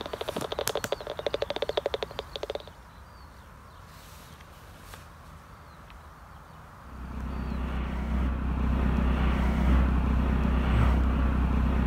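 Bat detector turning a bat's echolocation calls into a fast, even run of clicks for the first couple of seconds. About seven seconds in, a helicopter's low rumble comes up and grows loud.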